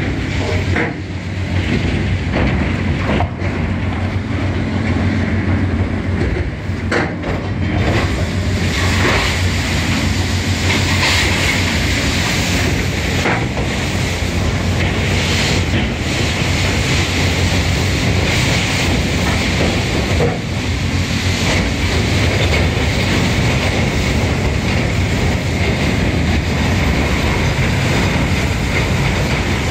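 Steady machinery noise from a crane-mounted hydraulic rotary-brush machine scrubbing the inside of a steel gondola wagon, over a constant low hum from the crane's power unit, with a few short knocks and scrapes of the machine against the wagon.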